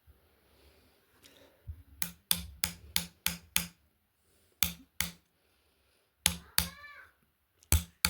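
Hammer blows while building a small fishing rod stand: a quick run of about six strikes, then three pairs of strikes, one of them ringing briefly.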